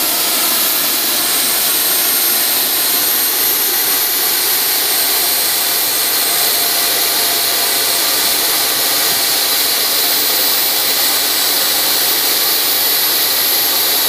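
Behotec J66 model turbojet engine running steadily on a calibration run: a loud, even rushing hiss with a very high whistle over it.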